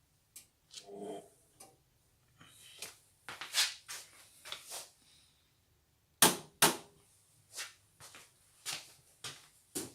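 A string of irregular sharp clicks and knocks with some light rustling, the loudest two close together about six seconds in: handling noises.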